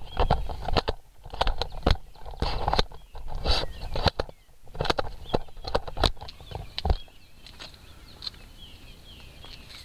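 Handling noise: an irregular run of knocks, clicks and scuffs as a tripod is folded and the camera is carried, lasting until about seven seconds in. After that it is quieter, with birds chirping.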